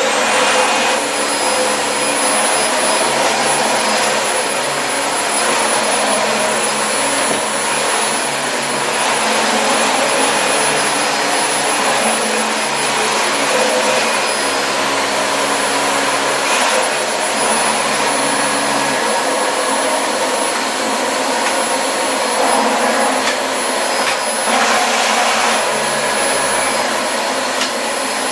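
Dyson DC25 Animal upright vacuum cleaner running steadily at full speed, a rush of air under a constant high motor whine.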